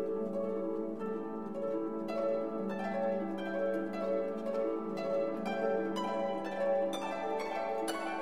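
Background music of plucked-string notes, harp-like, over a held low tone.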